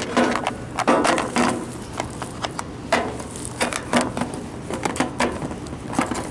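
A plastic snap-lock food container being pulled out of a hole in a metal housing and handled, with irregular clicks, knocks and scrapes of plastic against metal.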